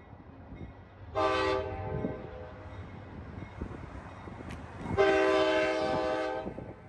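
Amtrak locomotive's air horn sounding twice: a short blast about a second in, then a longer one of about a second and a half near the end, each a chord of several tones.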